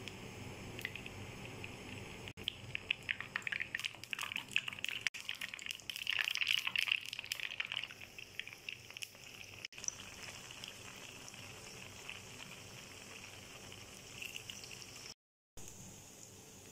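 Potato fingers frying in hot oil in a pan: a crackling sizzle, busiest a few seconds in, that cuts out for a moment near the end.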